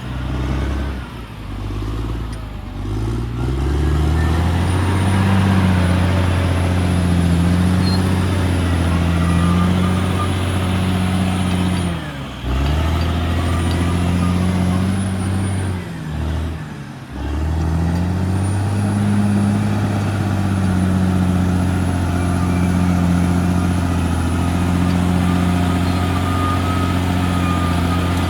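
CAT D6R XL bulldozer's diesel engine running under load, its pitch sagging and climbing in the first few seconds, then holding steady. It drops away briefly twice, about twelve and sixteen seconds in, and comes straight back up, with a faint high whine over it.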